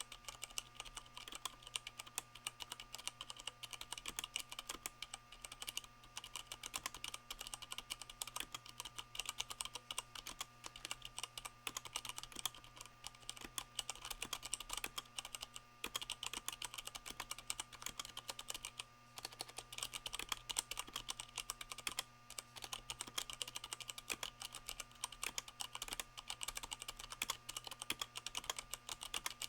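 Continuous fast typing on a Leopold FC660M mechanical keyboard with Cherry MX Brown switches fitted with rubber O-rings, a dense run of key clicks with a couple of brief pauses.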